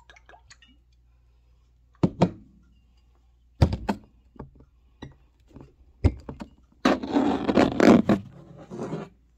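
A few knocks of a glass cognac bottle, its cork and a drinking glass being handled on a hard surface, then about two seconds of cognac pouring from the bottle into the glass near the end.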